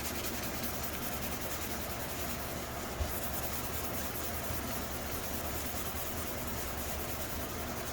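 Hand sanding of a helmet's clear coat with a fine sanding sponge, a steady rubbing scrape. A single light knock about three seconds in.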